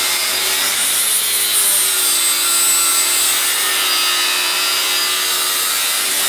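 Angle grinder running steadily under load, its abrasive disc grinding the steel of a narrowboat's handrail and throwing sparks: a motor whine over the rushing scrape of disc on metal, dressing back the welds.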